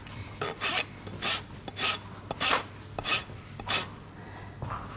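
Fine side of a steel hoof rasp filing a horse's hoof in about eight even scraping strokes, one every half second or so, pausing briefly near four seconds. It is taking the high inside heel down to level the foot.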